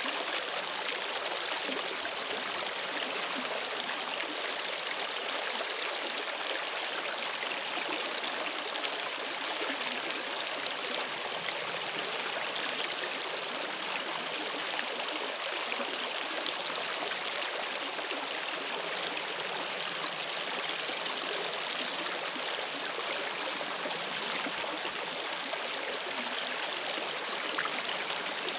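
Steady rush of running water, with no distinct events.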